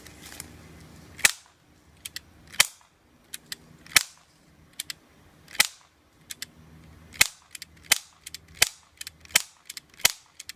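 Airsoft gun firing single shots, sharp snaps about one every second and a half, seven in all, with fainter clicks between the shots.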